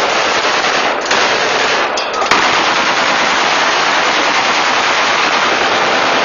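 Rifles fired into the air in celebration, the shots coming so fast and overlapping that they merge into one continuous loud crackle, with brief slackenings about one and two seconds in.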